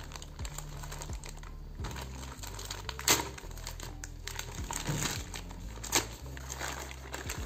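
Plastic poly mailer bag being torn open and crinkled by hand: a continuous crackle with two sharp, louder rips, about three seconds in and about six seconds in.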